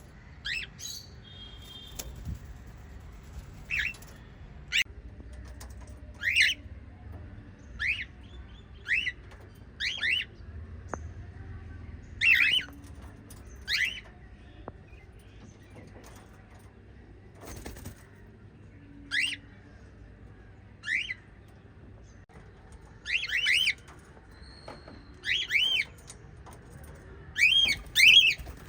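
Small pet parrots calling: separate short, sharp chirps every second or two, some coming in quick pairs or triples, over a faint low steady hum.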